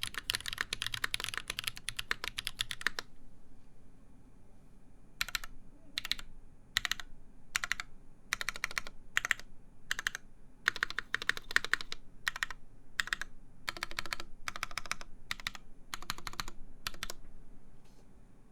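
Typing on a mechanical keyboard with lubed Holy Panda tactile switches and a full brass plate. A fast run of keystrokes in the first three seconds, then a pause, then short bursts of keystrokes with gaps between them, stopping about a second before the end.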